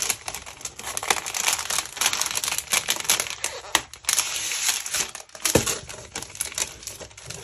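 Scrapbook paper sheets and their packaging being handled and shuffled: a continuous crinkling rustle with many small sharp taps.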